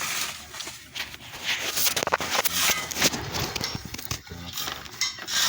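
Irregular knocks and metallic clinks of tools and engine parts being handled, with voices in the background.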